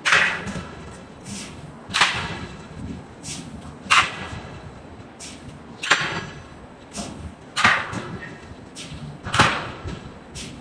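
Heavy forging hammer striking steel: six loud metallic blows about every two seconds, each ringing briefly, with lighter knocks between them.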